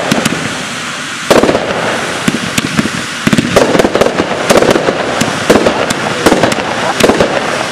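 Fireworks going off: loud bangs with many sharp cracks and a dense crackling, heavier bursts about a second and a half in and again past three and a half seconds, the crackling growing busier toward the end.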